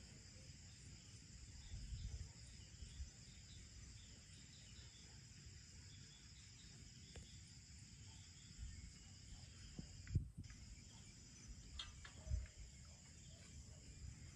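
Steady high-pitched chirring of crickets in a night insect chorus, with a few short low thumps, the loudest about ten seconds in.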